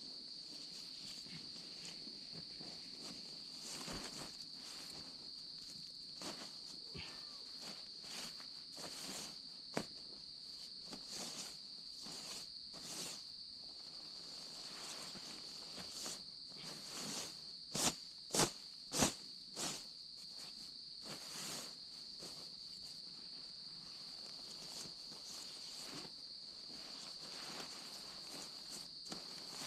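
Tent fabric rustling and crinkling as a tent is folded up, in scattered short bursts with three louder sharp rustles about two-thirds of the way through, over a steady high-pitched insect chorus.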